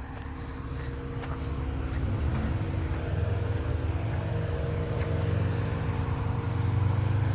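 Jeep Comanche pickup's engine running at low revs off-road, its hum getting louder about two seconds in and again near the end.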